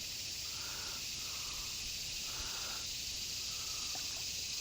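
Quiet outdoor ambience: a steady high hiss with a soft, short call repeated about five times, roughly once a second.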